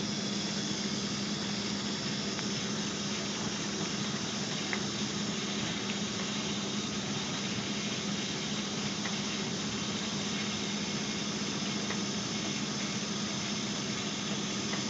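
Pumping equipment running steadily with a constant low hum and an even hiss, as a hose discharges high-solids latex wastewater into a lined roll-off container to be mixed with solidifier.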